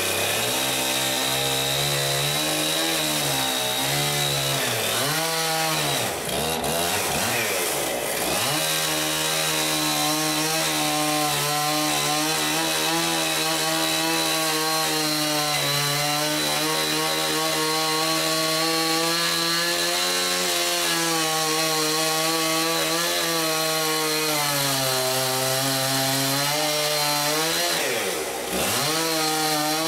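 Two-stroke chainsaw cutting through a log wall. It revs up and down several times in the first few seconds, then runs steadily at full throttle through the cut, easing off briefly near the end.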